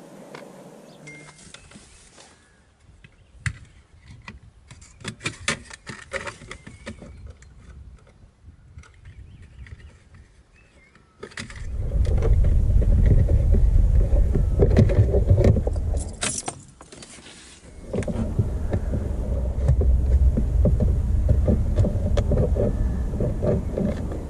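Plastic gear-selector surround and a screwdriver clicking and rattling as the selector trim is handled and refitted. From about halfway there is a loud low rumble without pitch, with a short break two-thirds of the way in.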